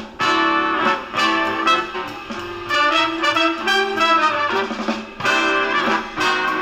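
Music playing from a CD through the small built-in speakers of a retro record-player-style CD player, with a new track starting abruptly right at the beginning.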